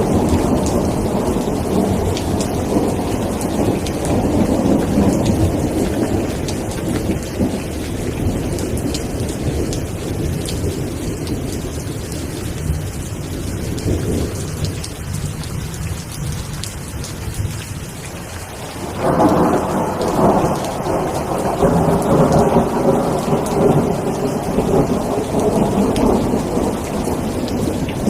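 Steady rain falling, with rolling thunder rumbling underneath; the rumble dies down and a fresh roll of thunder breaks in sharply about two-thirds of the way through.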